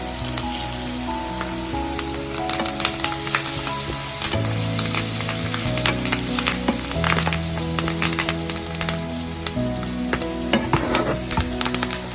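Diced onions, green chilies and curry leaves frying in hot coconut oil in a pan: a steady sizzle thick with small crackles and pops.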